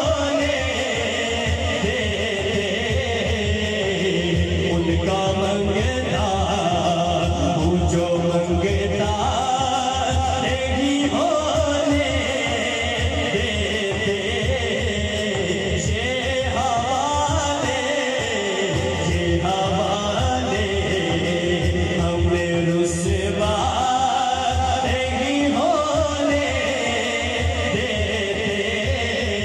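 A male voice sings an Urdu naat (devotional poem), amplified through a PA system in long melismatic phrases, over a steady low beat.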